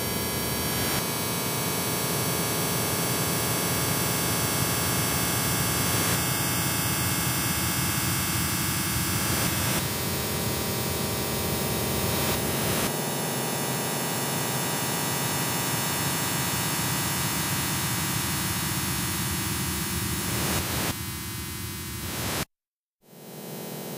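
A dense wall of harsh industrial noise music: loud hiss and static spread across every pitch, its texture shifting a few times. Near the end it cuts out to dead silence for about half a second, then comes back quieter with a hum underneath.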